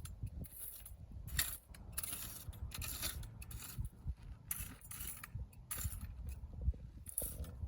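Dry weeds and soil scraped and rustled in irregular strokes, several a second, over a low rumble.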